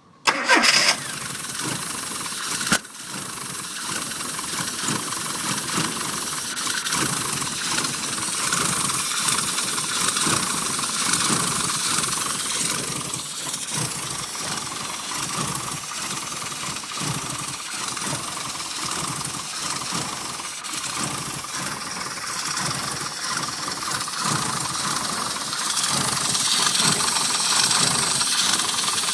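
Rover Mini SPi's 1275 cc A-series engine starting about half a second in, then idling unevenly and sputtering: the rough idle of a failing crankshaft position sensor.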